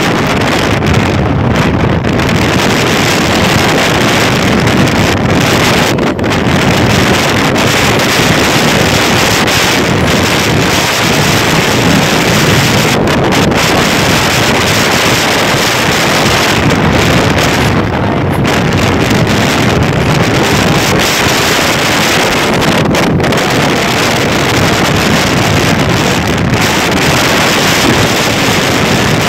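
Wind buffeting the microphone on a moving motorcycle: a loud, steady rush of noise with no breaks.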